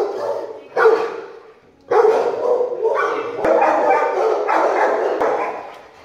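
Kennel dogs barking: a short burst about a second in, then near-continuous barking from about two seconds in.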